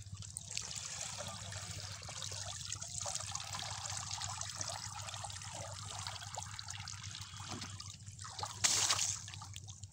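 Water streaming and dripping off a woven bamboo scoop net as it is lifted out of a pond, a steady trickling hiss. A brief louder burst of noise comes near the end.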